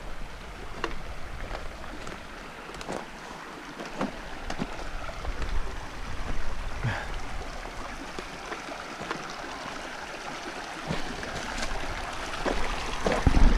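Shallow creek running over rocks as a steady rush, with scattered footsteps on the stony trail beside it.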